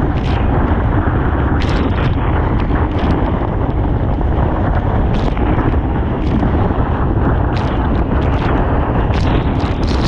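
Strong wind buffeting the microphone of a camera mounted on a planing windsurf board: a loud, steady rumble, with the board slapping through the chop and spray hissing against it several times.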